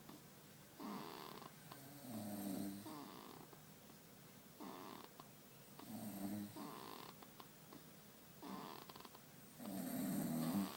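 A baby snoring in sleep, three slow breaths about four seconds apart. Each is a short breath followed by a longer, louder buzzing snore, and the last one is the loudest.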